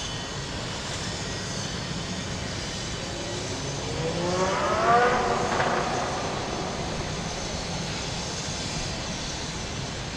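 A motorboat's engine speeding up as it passes, its pitch rising and loudest about five seconds in, over a steady low rumble of other engines and water.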